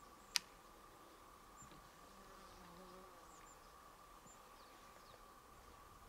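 Near silence outdoors: a faint steady hum, one sharp click about half a second in, and a few faint, very short high chirps.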